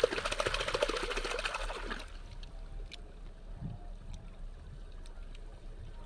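Hands splashing a small plastic toy dinosaur through water to wash off the mud, a busy splashing for about the first two seconds that then dies down to faint water sounds.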